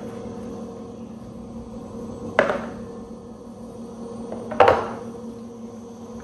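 Two sharp kitchen knocks, a couple of seconds apart, like utensils or containers being set down hard on a counter, each ringing briefly, over a steady humming appliance.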